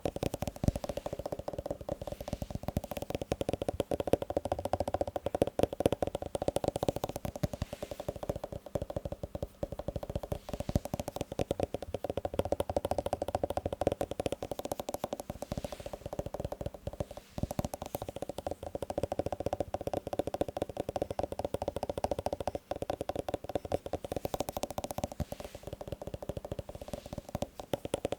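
Handheld massage gun running: a steady motor hum with very rapid, even percussive pulses.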